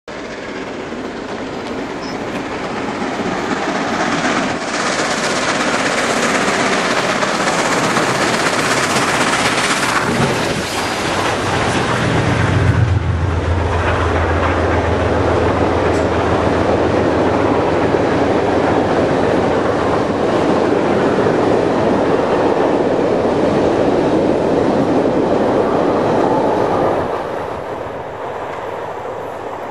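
Milwaukee Road 261, a 4-8-4 Northern steam locomotive, approaches with its passenger train and passes beneath. The coaches then roll by with steady wheel clatter over the rail joints. A low steady hum joins as the train goes under, and the sound drops off sharply near the end as the last car passes.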